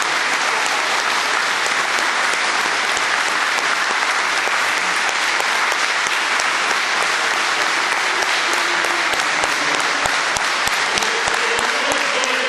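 Congregation applauding: steady clapping of many hands.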